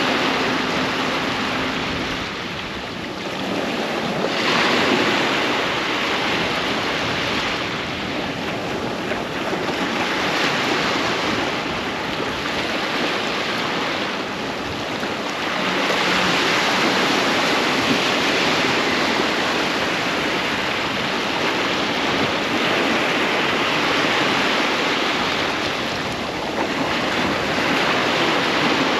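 Sea waves breaking and washing on a sandy beach: a continuous surf wash that swells and falls back every several seconds.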